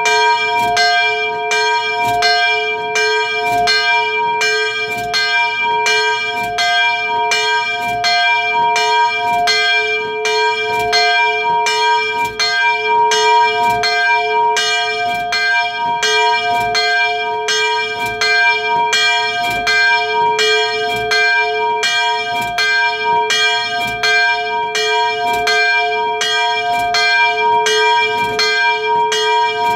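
Church bell ringing for the evening prayer bell (Gebetsläuten): regular strokes about three every two seconds, each ring hanging on into the next.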